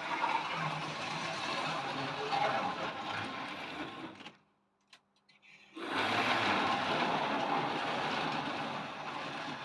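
Tri-ang OO-gauge model locomotive running along the track, its small electric motor and wheels whirring and rattling. The sound cuts out completely for about a second and a half a little past the middle, then carries on.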